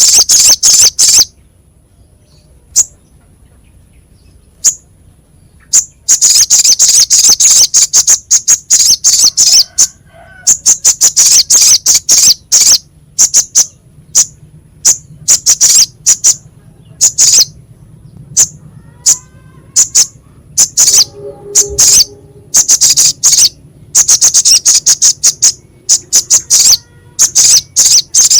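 Sogok ontong (little spiderhunter) calling: loud, rapid trains of sharp, high chip notes in bursts a second or more long, with single notes and short gaps between bursts.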